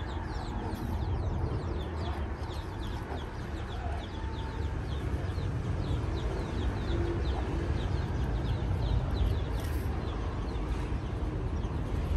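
Bird chirping: short high chirps, each falling in pitch, repeated a few times a second without a break, over a steady low rumble.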